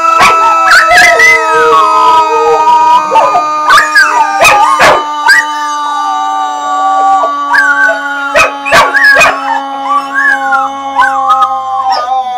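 Dogs howling together: a husky's wavering, gliding howls with short sharp yips and barks mixed in, over a steady held tone.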